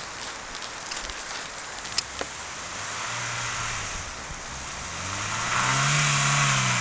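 Honda HR-V engine pulling on a snowy road, its pitch rising over the last two seconds along with a loud hiss of tyres on snow. There is a sharp click about two seconds in.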